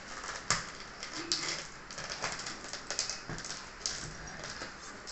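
Lid of a thin plastic takeaway container being prised off by hand, the plastic crackling and clicking irregularly.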